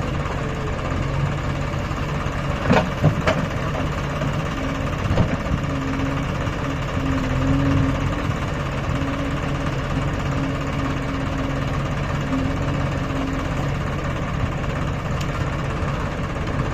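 Tractor diesel engine running at a steady speed. A few sharp knocks stand out about three and five seconds in.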